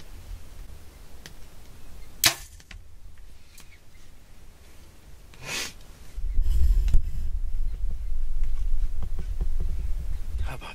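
Bow shot at a pronghorn: one sharp snap of the bowstring release about two seconds in, and a second, softer noise about three seconds later. From about six seconds in there is a steady low rumble of handling noise as the camera is moved.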